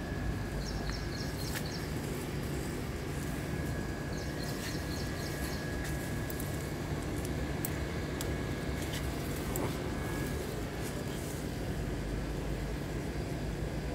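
A steady low hum, like a motor running at a distance, carries on throughout. Over it a bird gives two short runs of quick high chirps, and branches and leaves rustle and snap lightly as a hand grips the fruit.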